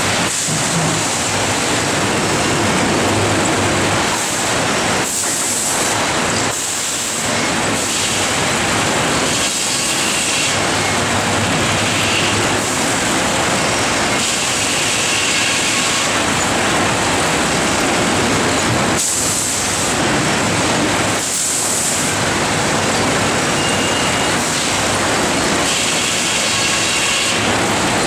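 Steady din of a sawmill headrig at work: the saw cutting a log carried on a Cleereman three-knee scanning carriage, with conveyors and machinery running. A sharper high hiss swells in and fades every few seconds.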